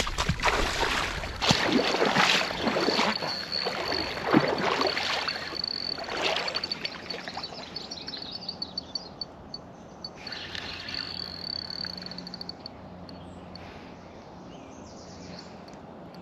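Splashing, sloshing steps of rubber waders wading through shallow water and mud, loud and irregular for the first half, then dying away. A thin, steady high-pitched trill runs in the background through the middle and stops about three-quarters of the way in.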